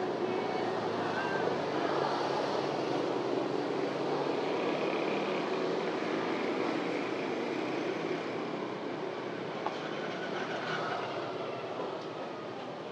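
Street traffic: a steady rush of passing vehicle noise that eases off a little near the end.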